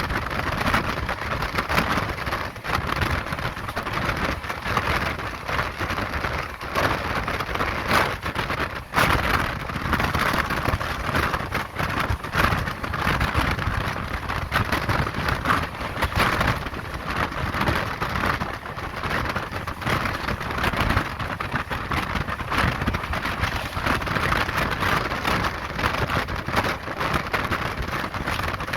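Express train running at high speed, heard from a passenger coach: a loud, steady rush of wind and wheel-on-rail noise, dotted with many irregular sharp clicks.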